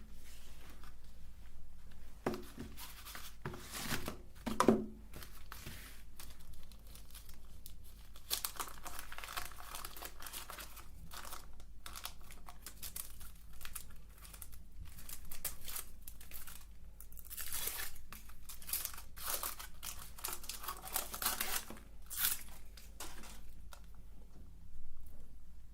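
Chocolate bar wrapper being torn open and crinkled, irregular crackling that goes on throughout, with a few louder knocks in the first few seconds.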